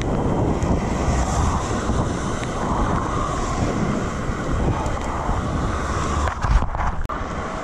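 Wind rushing over the microphone of a cyclist riding along a road, mixed with road and traffic noise. A few short knocks come near the end.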